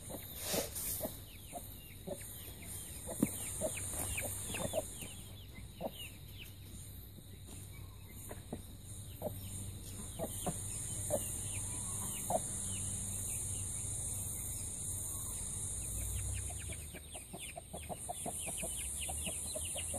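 Hen clucking now and then while young chicks peep in many short falling notes, all fairly faint, over a steady high hiss.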